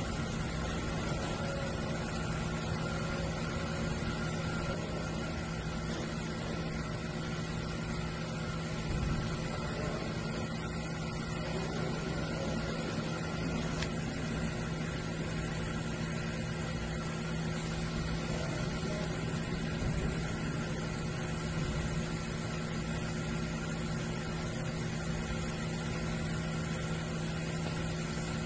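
DMG Mori DMU 210P five-axis CNC machining centre running with a steady mechanical hum and several fixed tones, level and unchanging throughout.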